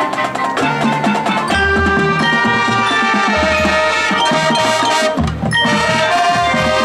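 High school marching band playing: winds and low brass holding sustained chords over drums and mallet percussion.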